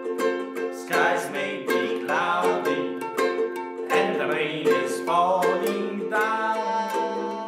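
Music: a ukulele strumming chords in a steady rhythm, with a melody line gliding above it.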